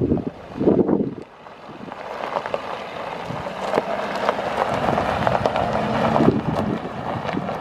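A 2011 Ford F-250 Super Duty's 6.7-litre V8 diesel running, under wind buffeting the microphone, with a strong gust about a second in.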